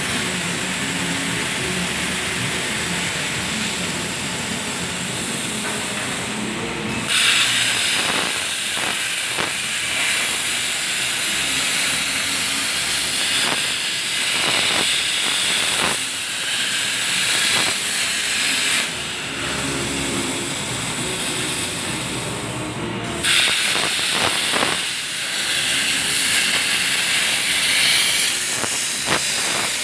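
A 100 A air plasma cutter on a CNC table is cutting steel plate with a loud, steady hiss and some crackling. The arc strikes about seven seconds in, cuts off briefly around two-thirds of the way through, then strikes again for a second cut. In the gaps a lower machine hum is heard.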